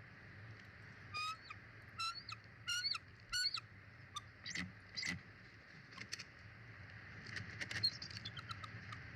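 A bird calling outdoors: four short, pitched calls about a second apart, followed by scattered quick chirps and clicks.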